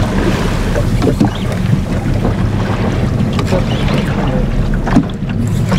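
Boat engine running steadily, a low drone under wind and water noise as the boat moves forward.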